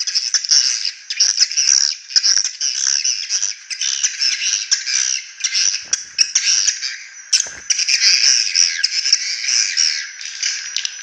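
Dense, unbroken chirping and twittering of swiftlets, a harsh, rough-sounding swiftlet lure call played to draw birds in and get them to roost in a swiftlet house.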